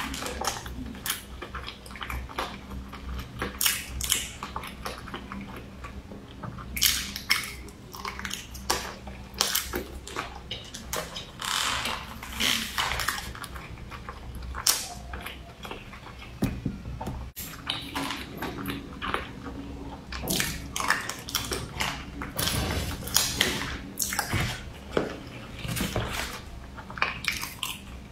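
Close-miked chewing and wet mouth sounds of a person eating rice with fatty pork, with frequent irregular smacks and clicks.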